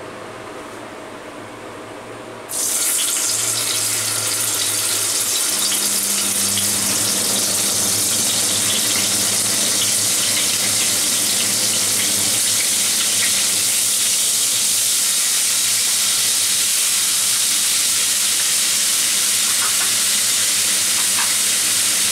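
Paneer cubes frying in hot oil and ghee in a pan: a sudden steady sizzle starts about two and a half seconds in as the cubes hit the fat and carries on evenly.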